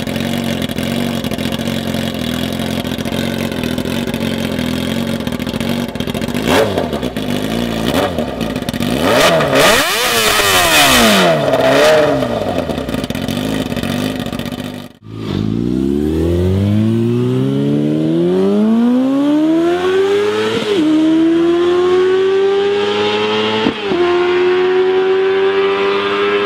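A 2003 Yamaha R6's inline-four engine, first running steadily with throttle blips, with a rev up and back down about ten seconds in. After a sudden cut it accelerates hard, its pitch climbing steeply, with two quick gear changes before it holds a high steady note.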